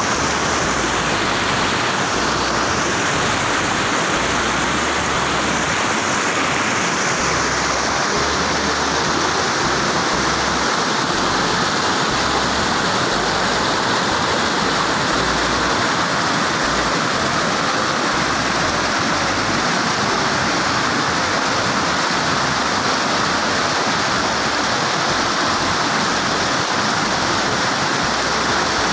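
Steady rush of water from a small waterfall and a shallow stream running over rocks; the tone of the rush shifts slightly about seven seconds in.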